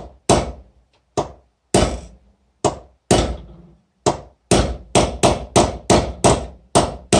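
Hammer striking a punch set against an old spark plug's ceramic insulator, driving it out of the threaded steel shell. About a dozen blows, each ringing briefly: spaced about a second apart at first, then quicker, roughly three a second, from about four seconds in.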